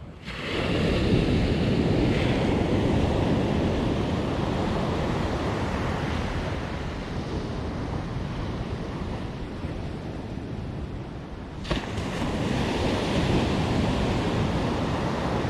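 Ocean surf washing onto a beach, with wind buffeting the microphone. The wash swells about a second in, eases off, and swells again in the last few seconds, with a single short click shortly before that second swell.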